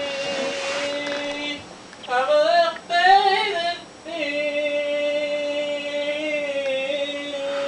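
A woman singing long held notes, with a short wavering phrase about two seconds in between them.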